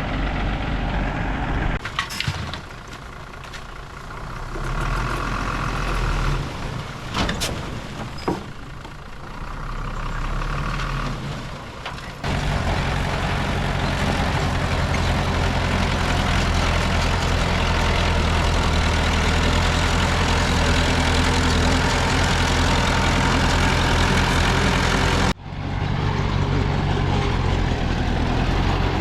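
Diesel engines of a D20P bulldozer and dump trucks running at a steady hum, with a few sharp knocks in the first part. The sound changes abruptly a few times.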